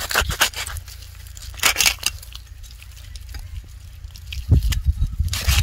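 Ash-coated hands scraping and squishing the slimy scales of a live striped snakehead fish, rubbing the wood ash in to strip off its slime. The scraping comes in scattered scratchy strokes and grows denser and louder about four and a half seconds in.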